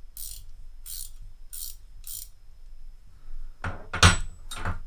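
Gearwrench combination ratcheting wrench clicking through its ratchet in four short strokes, then three louder clacks near the end, as the head is worked back and forth to feel for play; the larger sizes of the set are loose.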